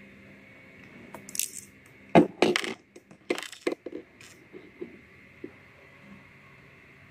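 Sharp clicks and knocks of small airsoft pistol parts being handled and set down on a wooden table, a quick cluster from about one to four seconds in, then a few softer ticks.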